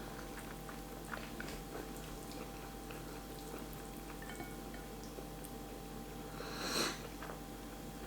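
Quiet chewing and wet mouth noises of a person eating spaghetti, with small scattered clicks over a faint steady hum. About seven seconds in comes one louder, short rush of noise.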